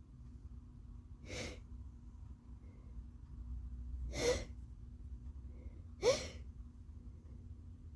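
Breathy build-up to an allergy sneeze: three short, sharp gasping breaths, each louder than the last. The third has a brief rising voiced note.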